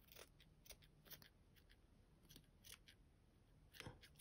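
Scissors snipping through a strip of fabric: a run of faint, short snips, with a slightly louder one near the end.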